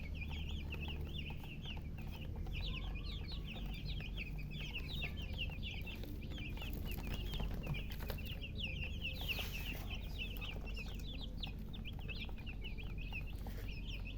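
A group of baby chicks cheeping constantly, many short high peeps overlapping, over a low steady hum.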